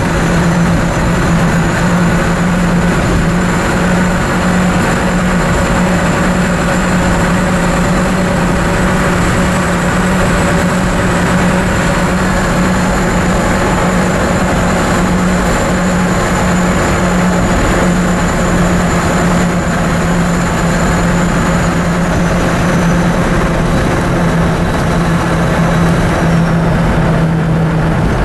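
Inside the cab of a Dodge Power Wagon driving down the road, its 360 cubic-inch V8 running on wood gas from an onboard gasifier: a steady engine drone mixed with road and tyre noise.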